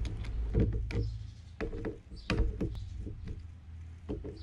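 Irregular clicks and knocks of a JBL Xtreme 1 speaker's plastic housing being handled and pried open, over a low steady hum.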